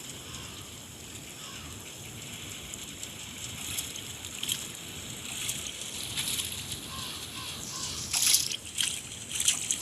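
Snowstorm: a steady hiss of wind and blowing snow, with louder crackling bursts about eight seconds in and again near the end.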